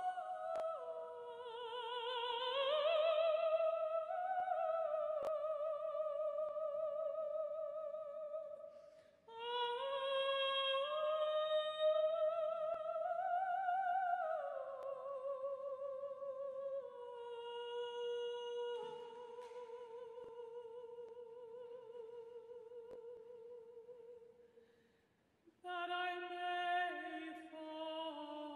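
Slow solo vocal music: a single high voice sings long held notes with a wide vibrato. The phrases break off about 9 and 25 seconds in.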